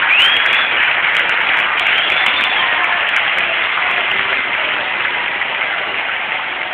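Large ballpark crowd applauding, slowly easing off, with two whistles ringing out over it, one at the start and one about two seconds in.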